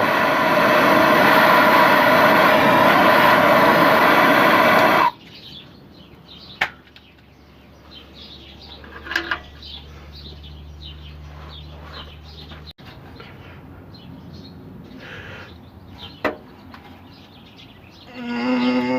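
Bernzomatic TS4000 trigger-start propane torch flame running with a steady rush for about five seconds, then cutting off suddenly. After that only faint background with a few light clicks and a low hum.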